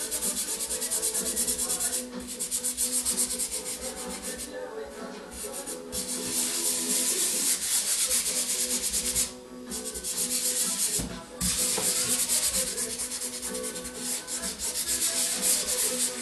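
Hand rubbing and blending dry pastel into paper: fast back-and-forth scrubbing strokes in spells, with short pauses between them.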